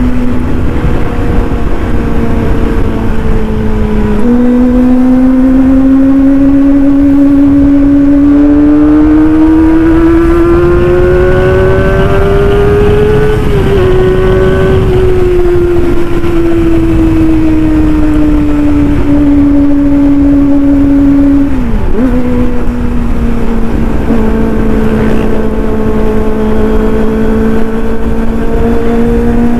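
Kawasaki ZX-25R's 249 cc inline-four running through a racing exhaust while riding. The engine note holds steady, jumps up in pitch a few seconds in, then climbs smoothly as the bike accelerates for several seconds. It then eases back down as the throttle closes, dips sharply for a moment, and settles into steady cruising revs.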